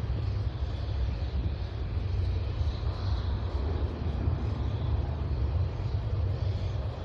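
Jet engines of a Boeing 777-200ER on approach, a steady low rumble with a fainter hiss above it.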